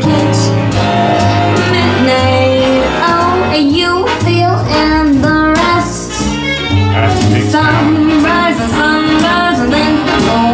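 Vocal music with a steady bass line, played loudly over Cabasse speakers in a small room.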